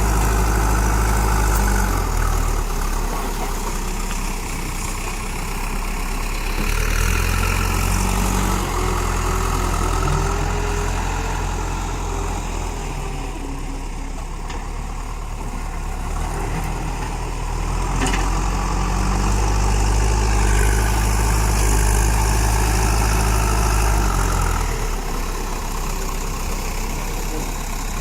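Diesel engine of a JCB backhoe loader running, its revs and loudness rising and falling several times as the machine works the soil.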